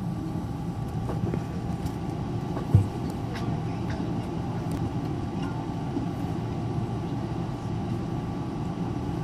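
Cabin noise inside a Boeing 777-300ER taxiing, the GE90-115B engines at idle: a steady rumble with a faint steady whine over it. A single thump about three seconds in is the loudest moment.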